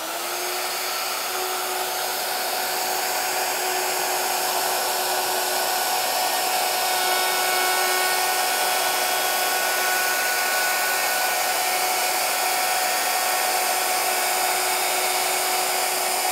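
Electric plunge router set to a mid speed, running with a steady high whine as its bearing-guided bit cuts along the edge of a wooden board. The motor finishes spinning up right at the start, then holds an even pitch.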